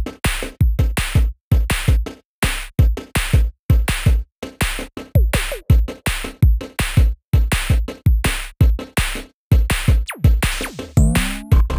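Electronic background music with a punchy drum-machine beat of deep kicks and sharp hits, with synth tones sliding in pitch near the end.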